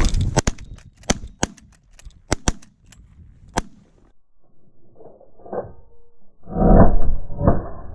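Shotguns firing at geese in a quick, uneven volley: about seven sharp reports in the first four seconds. After a short lull, a louder, duller burst with two more heavy hits comes near the end.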